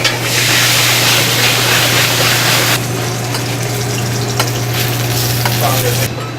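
Steady sizzling hiss over a constant low hum. The hiss drops in level about three seconds in, and a few light clicks sound over it.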